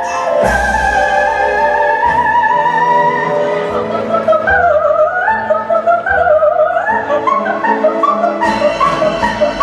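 A woman singing in mock-operatic soprano style, imitating an opera singer: held high notes with wide vibrato, then quick runs up and down, over instrumental accompaniment.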